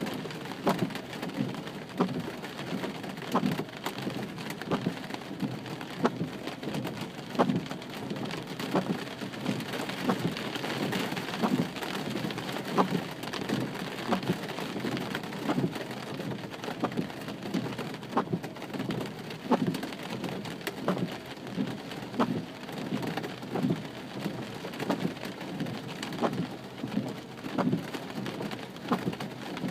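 Rain falling steadily, with many irregular heavy drops and drips striking a hard surface.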